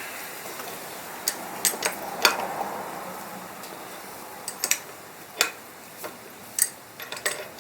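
About a dozen irregular, sharp metallic clicks and clinks of hand tools on steel suspension parts as a part is worked loose, over a steady background hiss.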